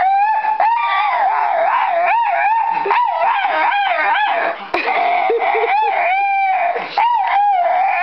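Small dog screaming in a long run of high-pitched, wavering whine-howls that rise and fall almost without a break, with a short gap about halfway through.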